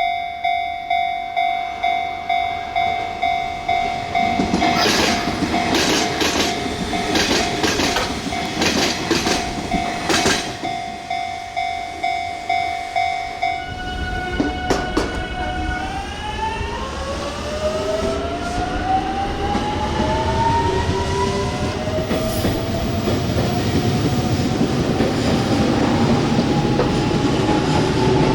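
Japanese level-crossing warning bell ringing in a steady pulse while an electric train passes, its wheels clacking over the rail joints. The bell stops about halfway through. An electric train's motor whine then rises steadily in pitch as it accelerates.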